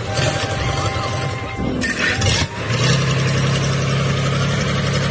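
Freshly rebuilt six-cylinder diesel engine started on its first test run: uneven turning over, then it catches about three seconds in and runs at a steady idle.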